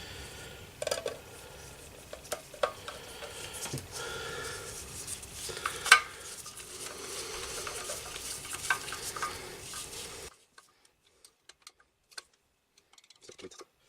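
Handling noise from small metal parts clinking and scraping, with scattered sharp clicks; the loudest click comes about six seconds in. A steady background hiss stops suddenly about ten seconds in, after which only faint clicks remain.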